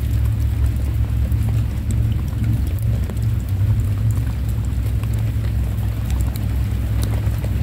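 Rain falling, with scattered sharp raindrop ticks over a loud, steady low rumble.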